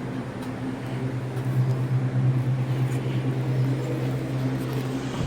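Steady low machine hum from a running motor, swelling slightly a second or two in.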